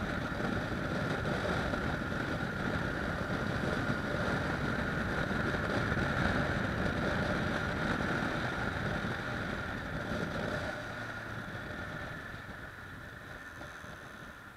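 Wind noise on the camera microphone over the running engine of a Kawasaki ER-6f, a parallel twin, while riding along. From about two-thirds of the way in the noise steadily dies away as the bike slows down.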